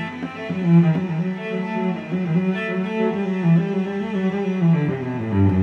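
Instrumental background music with a low melody of held notes, sounding like bowed strings.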